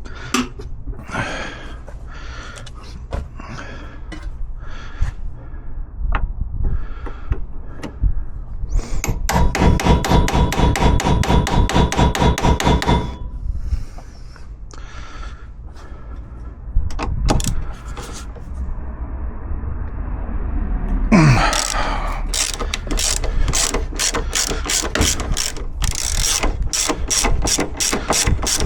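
Ratchet wrench clicking as heat-loosened bolts are backed out: scattered clicks at first, then a fast, even run of clicks around the middle and another from about two-thirds in.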